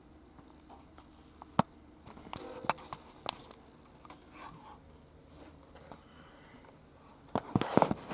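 Scattered sharp clicks and knocks in a small room: a single hard one about a second and a half in, a few more a second later, and a quick loud cluster near the end.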